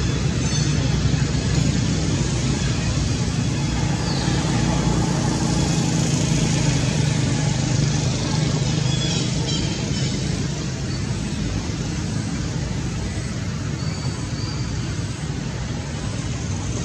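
Steady low rumble under a constant haze of outdoor background noise.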